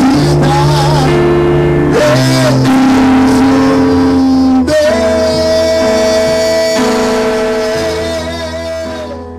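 Closing bars of a Brazilian gospel pop song: guitar and keyboard chords under a long held high melody note that fades out near the end.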